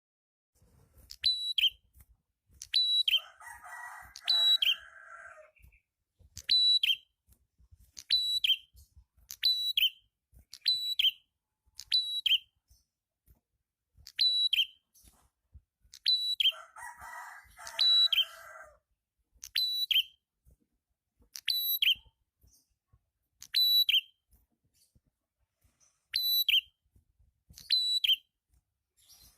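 Prenjak kepala merah, a small prinia-type songbird, calling over and over: short, sharp, high notes that drop in pitch, mostly in quick pairs about once a second. Twice a raspy, chattering burst lasting about two seconds breaks in, about 3 s in and again about 17 s in.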